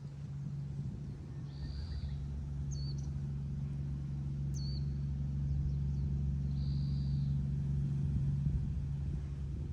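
An engine running with a steady low hum that grows gradually louder, with a few short, high bird chirps over it.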